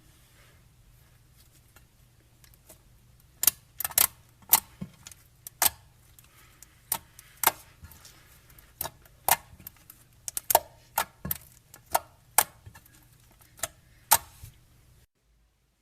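Slime being pressed and squeezed, giving sharp, irregular clicking pops about one or two a second, starting a few seconds in, over a faint low hum.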